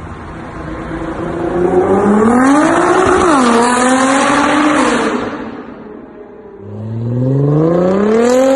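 Nissan GT-R R35's twin-turbo V6 through an Armytrix valved exhaust, accelerating hard. The engine note climbs, drops at a gear change about three seconds in, climbs again and fades out around six seconds. A second pull starts about seven seconds in and rises to the end.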